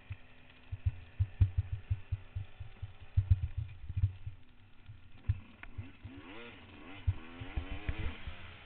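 Trail motorcycle engine running, with many heavy low thumps and knocks over the first few seconds, then revving up and down a few times near the end.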